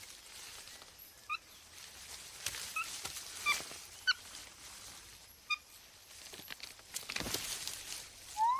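Quiet jungle ambience with short, high animal calls, one every second or so, and soft rustles, with a stronger rustle about seven seconds in. A rising call comes at the very end.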